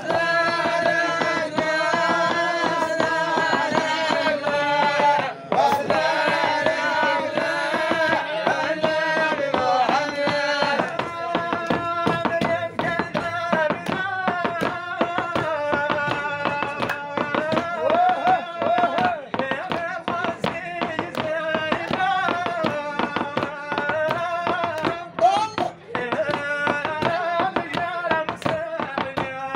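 A group of men chanting a Moroccan traditional devotional praise song (madih) together, with long, held, gliding melodic lines over a fast, steady percussive beat.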